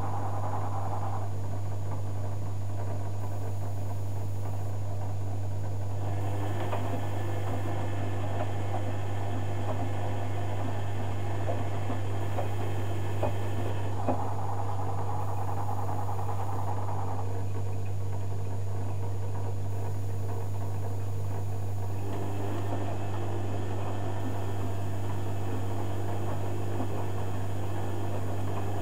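Zanussi FJ1093 Jetsystem front-loading washing machine in the wash stage of a cotton cycle. The drum motor whines as it tumbles the wet laundry in runs of several seconds, with pauses between, over a steady low hum and the slosh of water.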